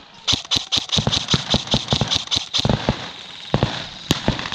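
Airsoft guns firing in rapid strings of sharp cracks, about six a second, with a brief lull about three seconds in and one sharper, louder crack just after four seconds.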